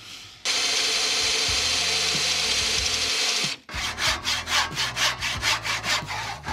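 Electric drill boring into wood, a steady whirr lasting about three seconds. After a brief pause, a hand saw cuts wood in quick back-and-forth strokes, about four a second.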